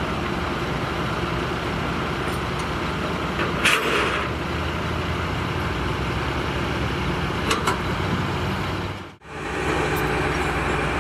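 Steady road traffic noise with a low engine rumble, and a short noisy burst about four seconds in. The sound briefly drops out near nine seconds.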